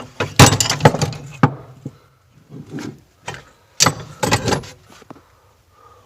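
Old metal hand tools clinking and clattering against each other as they are rummaged through in a tool chest, in several bursts of sharp knocks.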